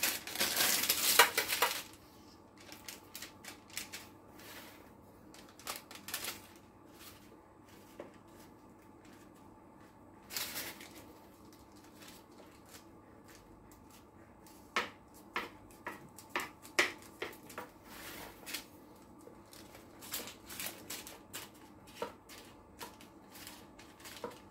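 Small kitchen knife clicking and tapping irregularly against a metal baking tray as it presses and crimps a puff-pastry edge. Parchment paper rustles loudly for the first two seconds and again briefly about ten seconds in.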